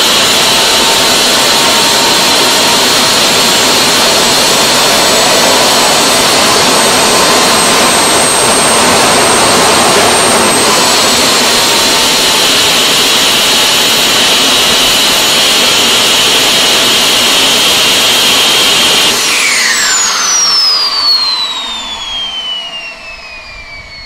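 Homemade gas turbine jet engine with an unlit afterburner fitted, running steadily: a loud rushing noise under a high, steady whine. About nineteen seconds in it shuts down and spools down, the whine falling steadily in pitch as the noise dies away.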